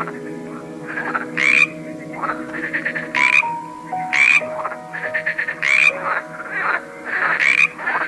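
A chorus of frogs croaking. One loud call repeats about every one and a half seconds over the softer calls of other frogs.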